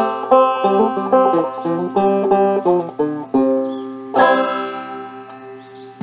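Five-string banjo picked in two-finger thumb-lead style, playing the last phrases of a fiddle tune as quick single notes, then a final chord struck about four seconds in and left to ring out and fade.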